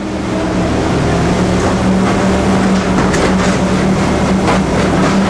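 Heavy construction machinery engines running steadily, with a few faint knocks near the middle.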